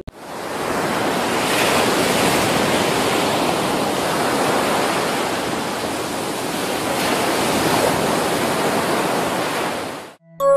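Sea waves and surf rushing in a steady, loud wash that swells slightly a couple of times, fading in at the start and cutting off abruptly near the end.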